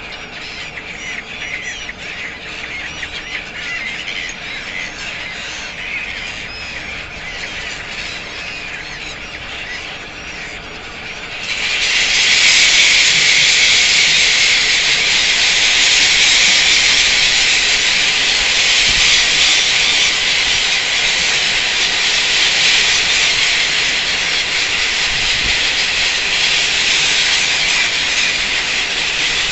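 A large flock of gulls calling at once, a dense chorus of screeching. About eleven seconds in it suddenly becomes much louder and thicker as the flock takes to the air.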